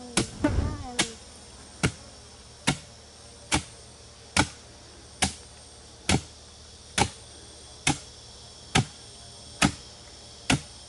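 A wooden sago pounder striking the pith inside a split sago palm trunk, at a steady rhythm of a little more than one stroke a second. Steady high insect drone behind it.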